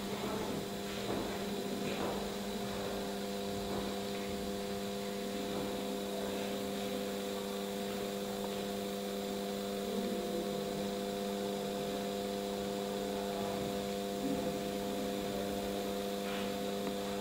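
Steady electrical hum made of several constant tones over a low hiss, with a few faint soft knocks now and then.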